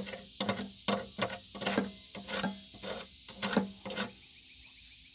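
A thin metal tool tapping and scraping against the steel mounting plate of a riding-mower deck: about a dozen irregular metal clicks over roughly four seconds, one of them ringing briefly, then they stop.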